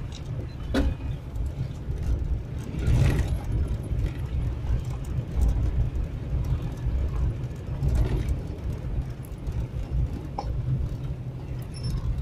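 Vehicle driving on a dirt forest road, heard from inside the cabin: a steady low rumble of engine and tyres, with a few brief knocks along the way.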